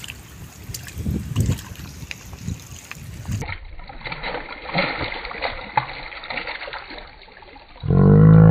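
Irregular splashing and sloshing of shallow lake water as a hooked rohu thrashes at the surface and a man wades around it, handling the line. Near the end a loud, drawn-out shout.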